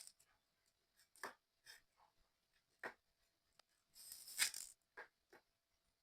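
Faint, scattered clicks and taps of small model-kit parts being handled and fitted together, with a short rustling scrape about four seconds in.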